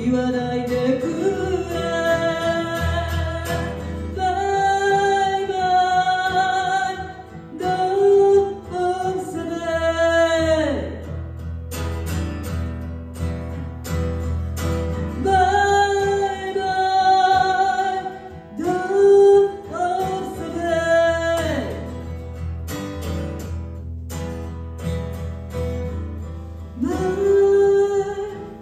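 A woman sings a Japanese song live into a microphone, with long held notes, accompanied by a steel-string acoustic guitar. Her voice drops out twice for a few seconds, leaving the guitar playing alone.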